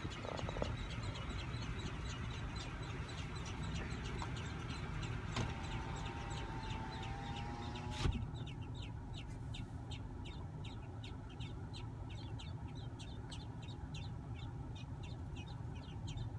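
Baby robins peeping in a steady rapid series of short high chirps, about three to four a second. A held lower tone runs for a couple of seconds near the middle, and a sharp knock comes about halfway through.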